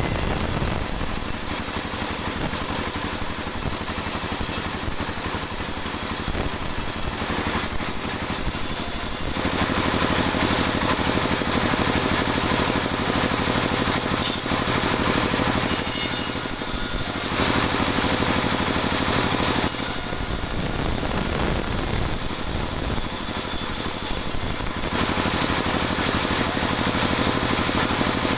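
Bandsaw mill running steadily, its blade sawing dry teak offcuts into 2 cm boards. A high hiss weakens about a third of the way in and comes back strongly a few seconds before the end.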